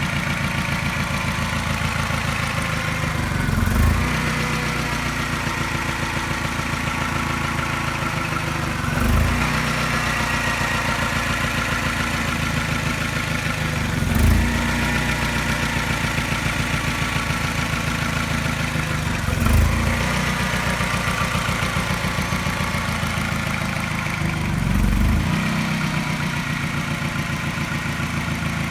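Mini N12 four-cylinder petrol engine idling, with a brief stumble and mild tap about every five seconds: a regular slight misfire.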